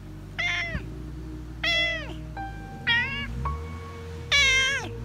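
A domestic cat meowing four times, about a second apart, each meow dropping in pitch at its end. Background music with steady held tones runs underneath.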